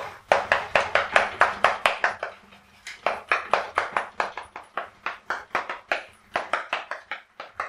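Chalk writing on a blackboard: a quick run of sharp taps and short scrapes, about six strokes a second, with a brief pause about two and a half seconds in.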